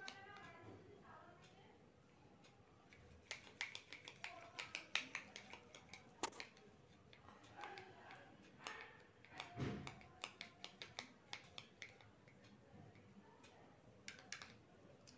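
Faint, irregular clicks and taps of a paper strip being handled and coloured in, with one duller knock about ten seconds in.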